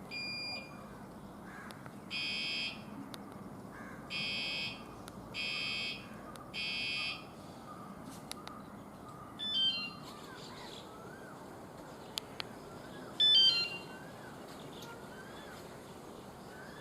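Wireless anti-theft bicycle alarm, heard from a distance, sounding from its remote: a short two-tone beep, then four electronic siren blasts of about half a second each, then two short runs of falling stepped chirps a few seconds apart.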